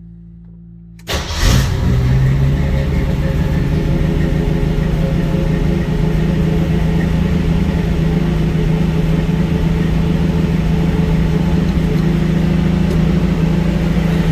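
Jeep CJ7 engine cold-started on the choke: the starter is bumped about a second in, the engine catches at once and settles into a steady idle.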